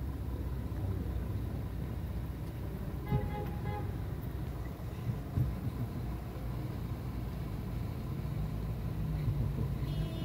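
Low, steady rumble of car engines and street traffic on a snowy road. About three seconds in comes a brief pitched tone lasting about half a second.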